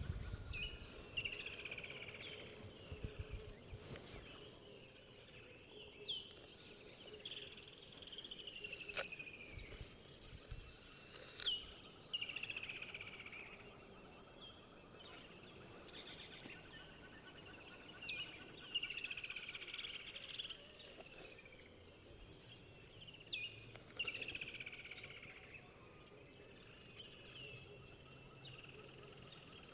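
Birds singing in the background: repeated downward-sliding calls, each about a second long, coming every few seconds. A few sharp clicks are heard in the first half.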